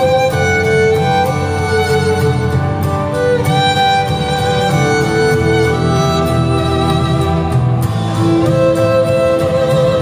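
Violin playing a melody of held notes, gliding between pitches, over an accompaniment with a low bass line.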